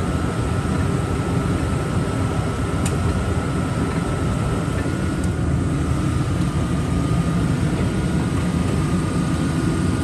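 Poreba gap-bed engine lathe running: a steady mechanical hum with a low rumble and a thin, constant whine over it.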